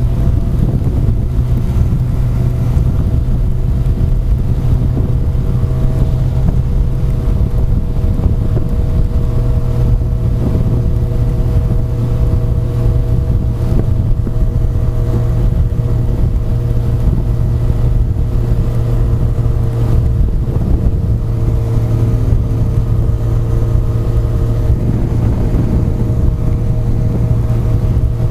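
Honda CBR1100XX inline-four motorcycle engine running at a steady, even speed, with wind rushing over the microphone.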